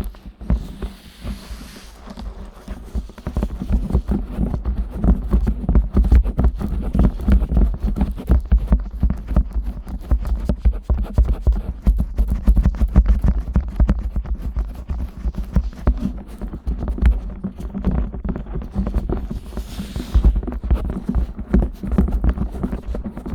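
Fingers and hands rubbing and kneading the silicone ears of a 3Dio binaural microphone: a dense, irregular run of muffled thumps and rustling rubs.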